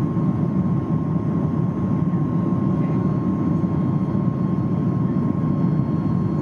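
Cabin noise inside a Boeing 737 MAX just after takeoff, heard from a window seat beside the engine. A loud, steady, deep rush of airflow and engine noise, with a thin steady high tone over it.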